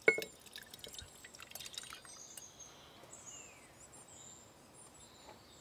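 A sharp clink of glass with a brief ring, then small clicks and faint wet pouring as tomato seed pulp is tipped from a glass bowl into a glass jar. Faint high bird chirps behind.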